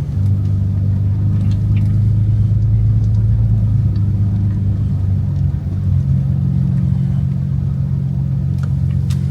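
Pickup truck engine droning inside the cab as it creeps along at low speed, a low steady hum that shifts in pitch just after the start and again about five and a half seconds in.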